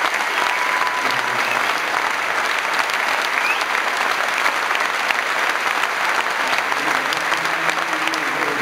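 Concert audience applauding steadily: a dense mass of hand claps that keeps up without letting off.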